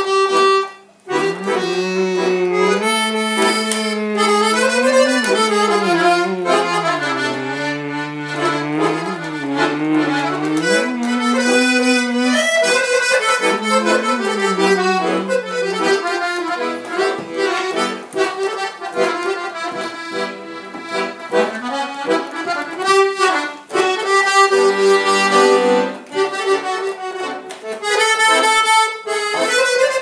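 Piano accordion playing a Balkan kuchek (čoček) dance tune: an ornamented melody over a moving lower line, with a brief break about a second in.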